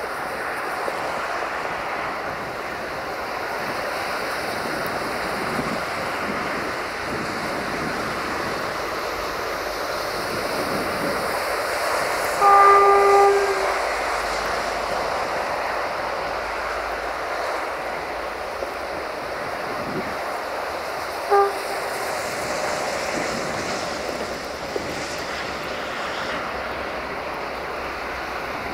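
Freight train hauled by a 060-DA (LDE2100) Sulzer diesel-electric locomotive approaching with a steady running noise. The locomotive's horn sounds once for about a second near the middle, then gives a short toot about nine seconds later.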